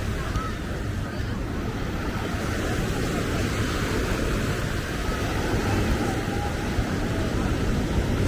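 Steady outdoor ambience of road traffic and ocean surf with faint voices of passers-by, without distinct events.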